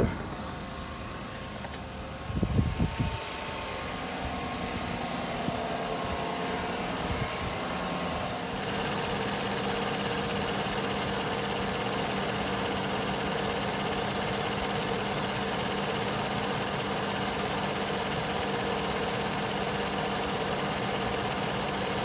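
2014 Chevrolet Silverado engine idling steadily, its alternator charging the battery at about 14.8 volts. A brief thump comes about two seconds in, and the engine sound grows louder and fuller about eight seconds in.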